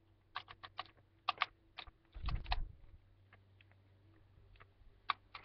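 Sharp plastic clicks and rattles from a Nerf blaster being handled, in quick clusters through the first couple of seconds. There is a low thump about two seconds in and a few more clicks near the end.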